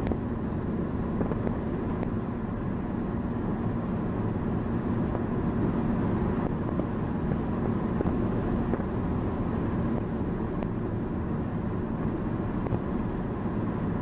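Car engine and road noise heard from inside the cabin while driving at a steady speed: an even, low drone.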